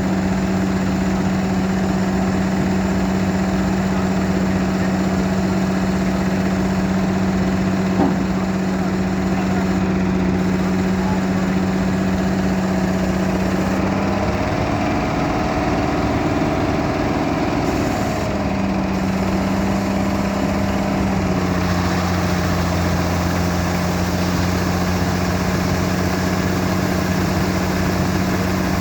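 A combine harvester's diesel engine and machinery running steadily with a strong droning tone. About halfway through the tone wavers for a few seconds, and a deeper hum joins a few seconds later. A single short click comes about 8 seconds in.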